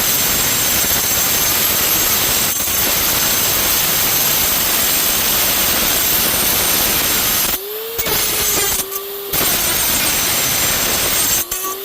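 Bauer 3-inch corded cut-off tool with a diamond blade cutting 1/8-inch steel plate, a loud, steady grinding hiss. About seven and a half seconds in, the blade comes off the metal for a second or two and the motor's whine is heard spinning up free, then it bites again. It lifts off once more briefly near the end.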